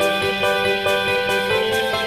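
Background music: sustained instrumental notes with chords shifting about every half second, over a light steady beat of about two strokes a second.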